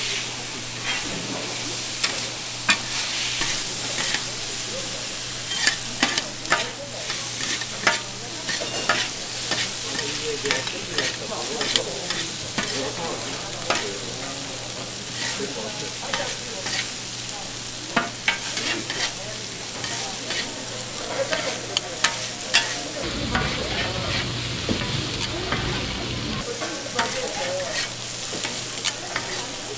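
Stir-fried noodles sizzling on a hot pan, with utensils clacking and scraping against the metal many times as the noodles are tossed.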